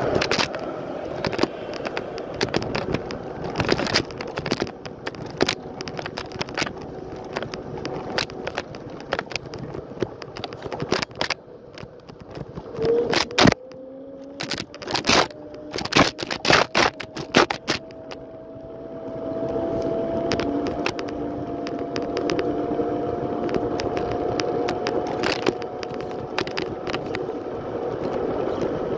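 Lime electric scooter in motion: its frame rattles and clatters over rough pavement, loudest in a run of hard knocks a little past halfway. A steady motor whine follows that slowly rises in pitch as the scooter picks up speed.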